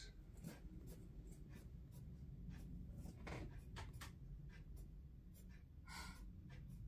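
Pencil scratching on paper in a series of short, quick strokes, sketching the spiky needles of a branch. Faint, with irregular gaps between strokes.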